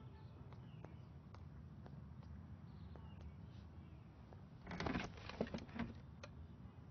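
Quiet low room tone with a few faint clicks, and a brief louder noisy sound lasting about a second, a little before five seconds in.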